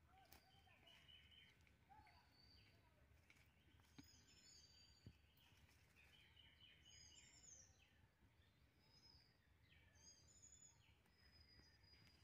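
Near silence with faint bird calls: short high chirps and whistles coming in small groups every couple of seconds.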